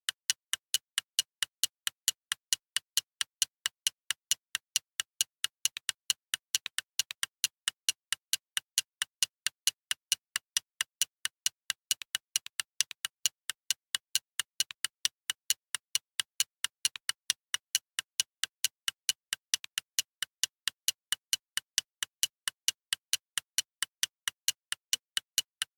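Mechanical alarm clock ticking steadily: sharp, bright ticks at an even pace of roughly two to three a second.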